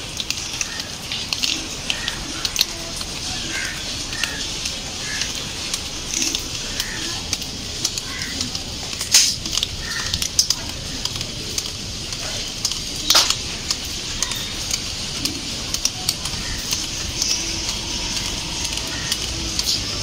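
Rainwater dripping from wet leaves and pots after rain: a steady hiss with many small irregular drip ticks, and two louder sharp clicks about nine and thirteen seconds in.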